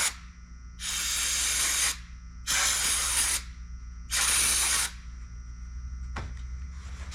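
Three short hissing bursts of spray, each about a second long with brief pauses between them, from cleaning engine valves, over a steady low hum.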